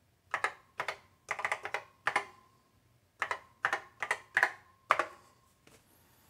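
Original Macintosh keyboard's keys clacking as a web address is typed, in several quick bursts of keystrokes that stop about five seconds in.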